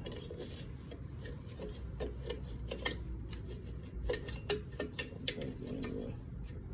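Irregular light metallic clicks and clinks of drum brake parts being handled and fitted, a few ringing briefly.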